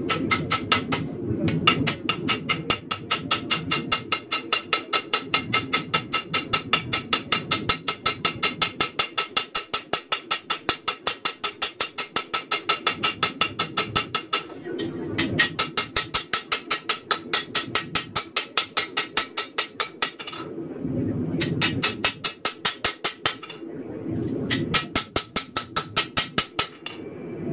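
Ball-peen hammer striking a red-hot high-carbon steel knife blade on a steel anvil block, ringing, about four blows a second. The blows come in four runs with brief pauses between them as the blade is hand-forged.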